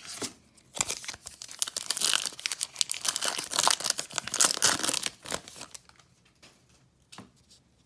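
A trading-card pack wrapper being torn open and crinkled, a dense crackling that lasts about five seconds, followed by a single short tap near the end.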